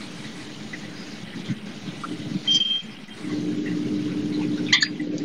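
A steady engine hum, as of a motor vehicle running, growing louder about three seconds in, with a few light clinks near the end.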